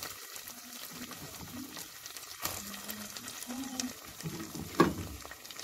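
Onions, capsicum and tomato paste sizzling in a stainless steel pot as diced carrots are added, with two sharp knocks, about two and a half seconds in and near the end.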